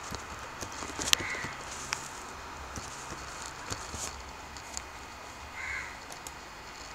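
Computer keyboard keys being typed in irregular clicks, one sharper click about a second in, over a steady background hiss. Two faint short high tones come in, one early and one near the end.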